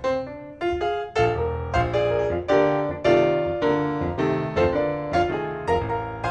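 Background piano music: chords struck about twice a second, each ringing and fading before the next.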